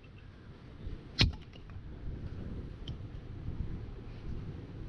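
A single sharp chopping blow about a second in splits a piece of firewood on a log chopping block, followed by a few faint knocks of wood pieces. Another chop lands right at the end, over a steady low background rumble.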